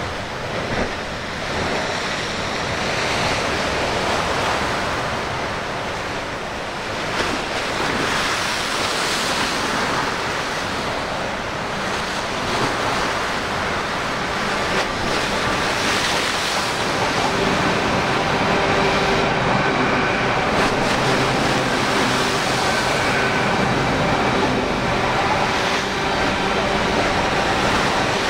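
Sea waves washing in and breaking, swelling and ebbing every few seconds, with wind buffeting the microphone. From a little past halfway a faint steady hum of several tones joins underneath.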